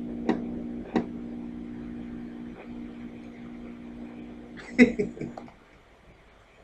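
A sustained low synth chord holds steadily at the end of the hip-hop track, with two sharp ticks about a second in, and cuts off about five and a half seconds in. Just before it stops there is a brief louder burst of sound.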